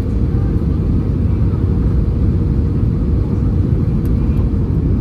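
Steady cabin noise of an Airbus A320-200 airliner descending toward landing: a loud, even low rumble of engines and airflow with a steady droning hum running through it.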